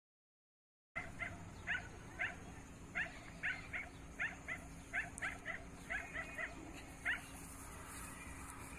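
Puppies yipping in play, a quick run of short high yips about two a second as they wrestle over a ball. They begin after a second of dead silence and stop about seven seconds in, leaving a faint steady hum.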